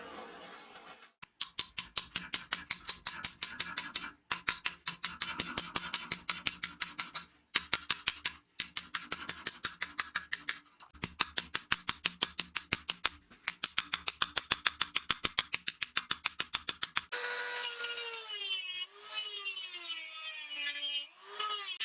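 Hand tool worked in fast, even back-and-forth strokes, about five a second, with a few short pauses, as in sawing, filing or sanding. Near the end it gives way to a small power tool running, its pitch wavering up and down.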